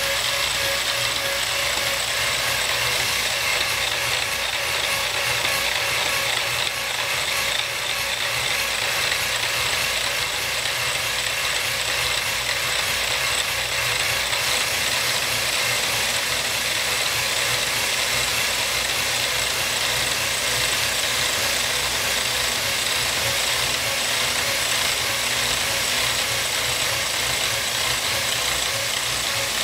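Power hacksaw running steadily, its blade stroking back and forth through a round metal rod to cut it to length.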